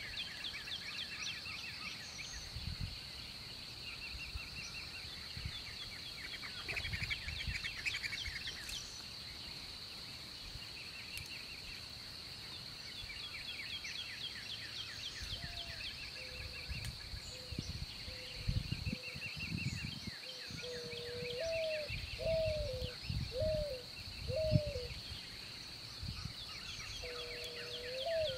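Outdoor birdsong: songbirds chirping in quick trills over a steady high-pitched insect drone. From about halfway in, a lower bird call repeats in short rising-and-falling notes, about one a second.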